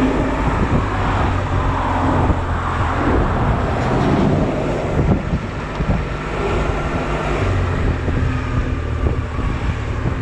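Honda Silver Wing scooter's engine running at low speed while the scooter creeps through a traffic jam, with wind noise on the microphone and surrounding traffic.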